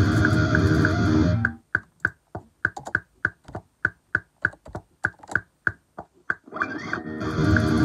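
Electric guitar playing. It stops about a second and a half in, and a run of quick, uneven sharp clicks follows for about five seconds before the guitar comes back in.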